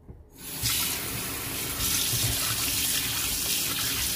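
Kitchen tap turned on about half a second in, then water running steadily into a stainless steel sink as prawns are rinsed under it.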